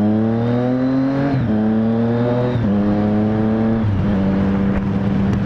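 Triumph Street Triple 765 S inline three-cylinder engine accelerating hard. Its pitch climbs and then drops sharply three times, a little over a second apart, as it shifts up through the gears, then holds steady.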